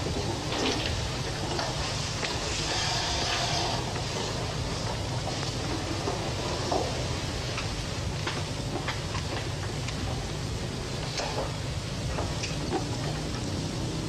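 Steady hiss and low hum of an old television recording, with scattered faint clicks and rustles.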